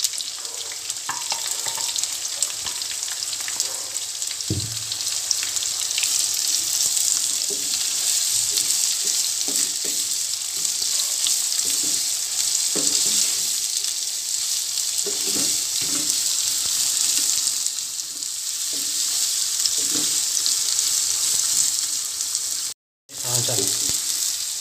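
Sliced onions sizzling steadily in hot oil in a karahi as they begin to fry. A wooden spatula stirring them scrapes and knocks against the pan now and then. The sound cuts out for a moment near the end.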